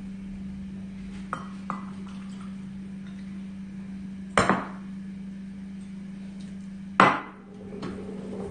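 Stainless steel bowl knocked down on a tabletop: two light clicks near the start, then a loud clank about halfway and another near the end with a short ring. A steady low hum sits underneath.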